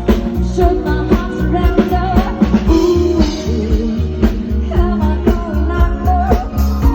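Live band music with a singer, a steady drum beat and heavy bass.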